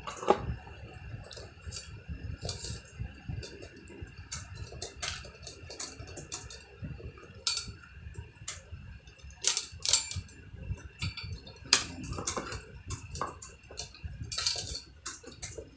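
Irregular clicks, taps and light rattles of small plastic and metal parts and wires being handled while an electric fan is wired up, with a few sharper knocks scattered through.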